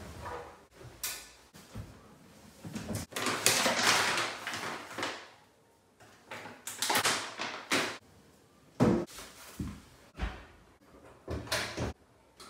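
Clothes rustling as they are stuffed into a front-loading washing machine's drum, then cupboard doors and bottles knocking and clicking several times as household products are taken out.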